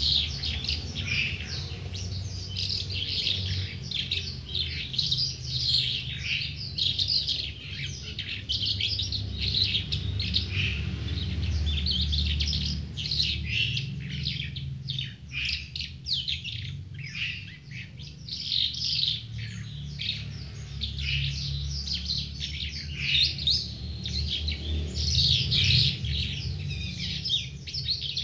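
Caged calandra lark singing a long, unbroken run of rapid, varied chirps and trills, note after note with barely a pause.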